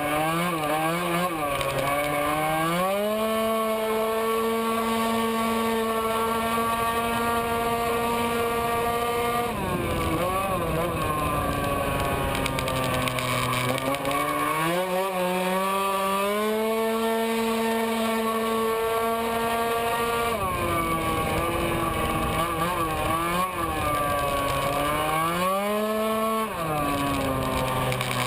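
Tuned racing scooter's engine at full throttle, heard from onboard. Its pitch climbs and then holds at one high note for several seconds while the scooter gathers speed, which is typical of a scooter's CVT variator. It drops back between the climbs and does this three times: about 3 s in, around 14 s, and again near the end.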